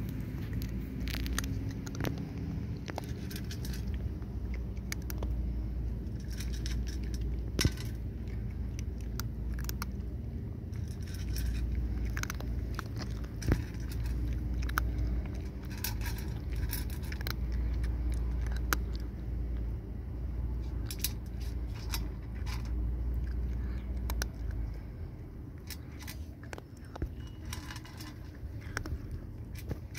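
A cat eating dry kibble from a stainless steel tray: irregular crunches and small clicks of kibble and teeth against the metal, with a few sharper clinks, over a steady low rumble.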